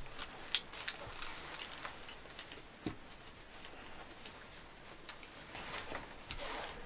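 Light irregular clicks and rustles of canvas webbing straps and their metal fittings being handled while a shoulder pad is threaded onto the suspenders.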